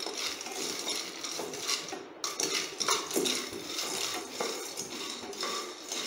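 Peanuts being stirred in a nonstick kadai as they roast: the nuts rattle against the pan and the spatula scrapes across it in quick, irregular strokes.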